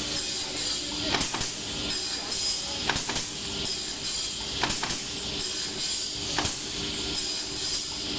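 Wooden pallet block cutting machine running with a steady mechanical noise and hum, with a sharp knock about every second and a half to two seconds as it works through the blocks.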